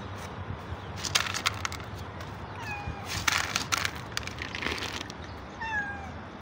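Cats meowing in short falling calls, one about halfway through and one near the end, among bursts of sharp crunching clicks from cats eating dry kibble out of plastic bowls.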